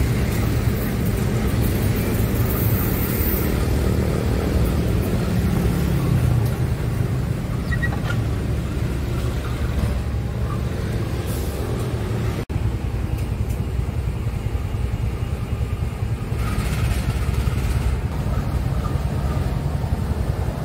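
Diesel locomotive engine running with a steady low rumble as the fuel tank train approaches along the line. There is a brief break in the sound about twelve seconds in.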